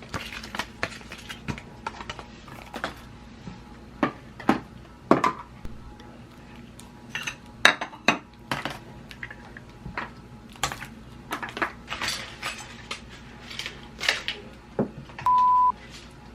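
Irregular clinks and clatters of small hard objects being handled, then one short steady beep near the end.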